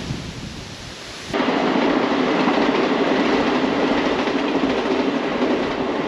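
Passenger train running past on the railway line, a steady, loud noise of wheels on rails that comes in abruptly about a second in.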